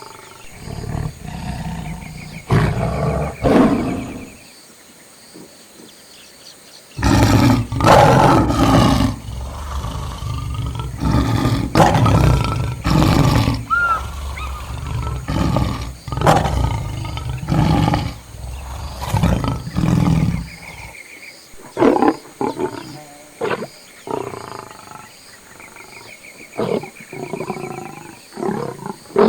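Lions roaring: a few short calls at first, then a long loud stretch of overlapping roars in the middle, trailing off into shorter, scattered calls near the end.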